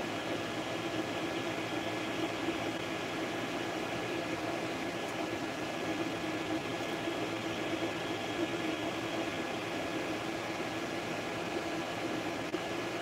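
Creality FDM 3D printer running mid-print: a steady whir from its cooling fans with the hum of the stepper motors driving the print head.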